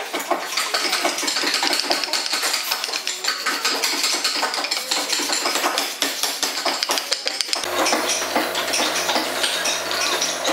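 Hand sanding of a carved wooden hanger: quick scratchy rubbing strokes with small knocks against the wood. About three-quarters of the way through, a steady low hum comes in from the air compressor feeding a spray gun.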